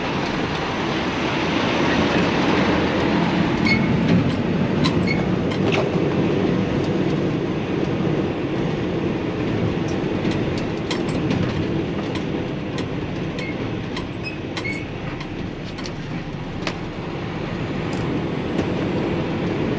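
Dump truck running along a rough dirt road, heard from inside the cab. A steady engine and road rumble runs throughout, with frequent small rattles and clunks.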